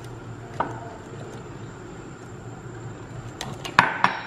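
A metal spoon clinking against a glass measuring jug: one light tap about half a second in, then a quick cluster of clinks near the end, the loudest of them about four seconds in.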